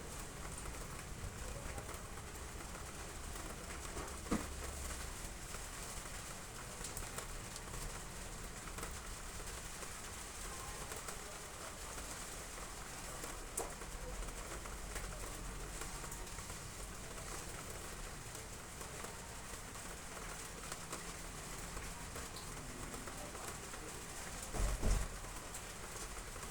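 Steady rain falling on roof tiles, with a bird calling through it. There is a sharp knock about four seconds in and a low thump near the end.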